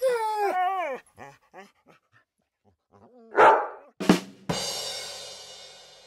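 A dog's high whine sliding down in pitch, then a single loud bark about three and a half seconds in. A sharp knock and a struck, ringing tone follow, fading away slowly.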